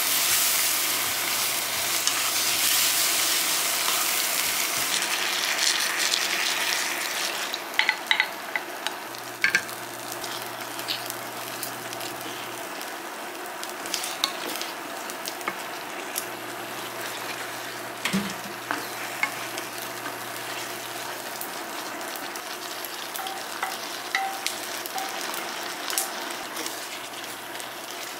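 Food sizzling in a nonstick frying pan as wooden spatulas stir and scrape through a spicy stir-fry and sauced rice. The sizzle is loudest for the first six or seven seconds, then settles lower, with scattered sharp knocks of the spatula against the pan.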